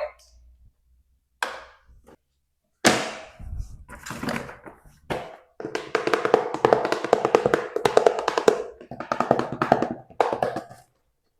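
Plastic toy and packaging being handled: a few separate taps and knocks, then a fast run of clicks and rattles lasting several seconds, with a short break before a final burst.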